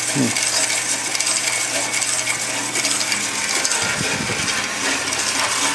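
An electric drill spins a cylinder hone in the cylinder bore of a Stover CT-2 hit-and-miss engine. The stones scrape and clatter steadily against the bore wall over the drill's even running. The honing knocks the glaze off the bore so the new piston rings will seat.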